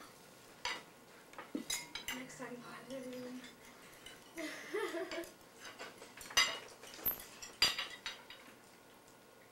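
Knives and forks clinking and scraping on dinner plates as people eat, with two louder clinks about two-thirds of the way through. A faint murmur of voices underneath.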